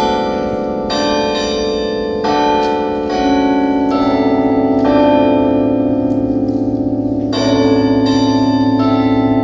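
Church bells ringing: several bells of different pitches struck one after another, a new stroke about every second, each ringing on with a long, wavering hum that overlaps the next.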